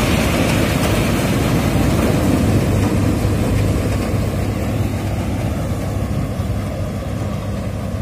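Kartar 4000 combine harvester running steadily while cutting wheat. Its diesel engine and threshing machinery make a low hum, growing gradually fainter as the machine moves away.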